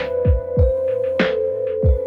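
Background electronic music with a steady beat: deep kick drums, sharp snare hits and a held synth note.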